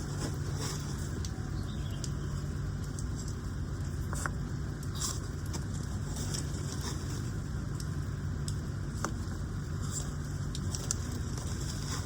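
A steady low motor hum, with many light ticks and taps scattered over it.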